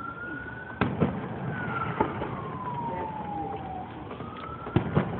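A distant emergency-vehicle siren wailing, its pitch slowly rising, falling and rising again. Several sharp firework bangs cut across it, a pair about a second in, one more a second later, and a pair near the end.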